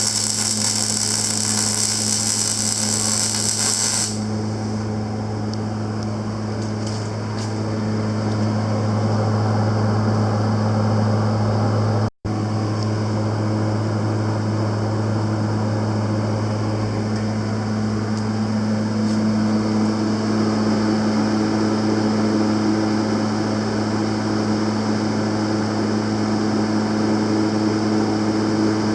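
Panasonic full-digital semi-automatic arc welder under test: a steady electrical hum with a rough, crackling arc noise over it. The sound is hissier for the first few seconds and cuts out briefly about twelve seconds in.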